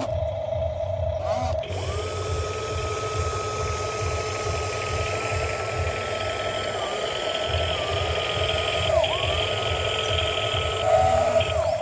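Small electric motors of a radio-controlled toy excavator whining, over a low rumble. The whine starts about two seconds in, dips in pitch a few times as the motors take load, and drops away near the end.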